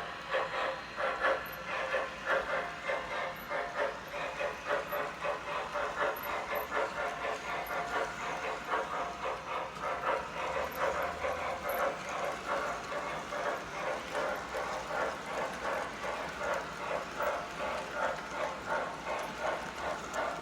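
Model 4-6-6-4 Challenger steam locomotive running, its sound system giving a steady, even steam chuff of about two to three beats a second.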